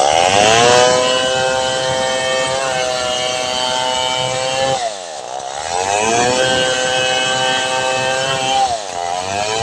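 Stihl 070 two-stroke chainsaw at full throttle, ripping a log lengthwise. The revs drop sharply about five seconds in and again near the end, then climb back up to a steady high pitch.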